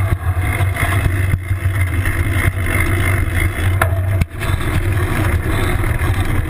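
Steady low rumble of wind buffeting and road vibration on a handlebar-mounted camera as a mountain bike rolls over pavement. A few sharp knocks come as the bike goes over bumps, one about four seconds in.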